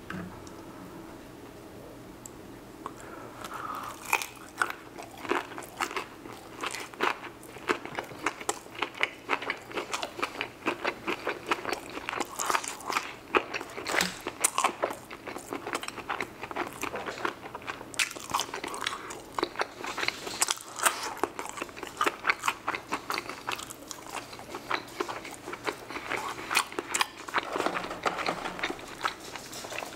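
Close-miked chewing of cheese-sauced loaded fries: a dense run of sharp mouth clicks and smacks that starts about four seconds in, after a quiet start.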